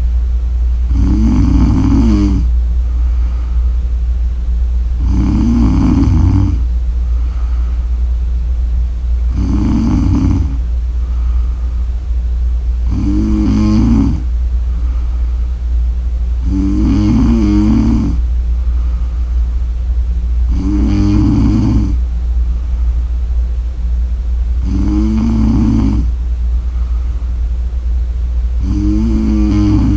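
A woman snoring steadily: a rough snore about every four seconds, eight in all, with a softer breath out between each. A steady low hum runs underneath throughout.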